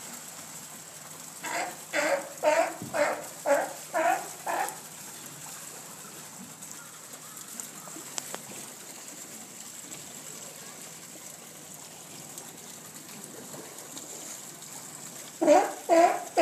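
Sea lion barking: a quick run of about seven short barks, then another run starting near the end, over faint water noise from the pool.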